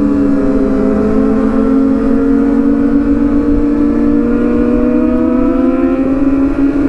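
Kawasaki motorcycle engine running under way at a steady high pitch that rises slowly as it gains speed, over a low rumbling noise.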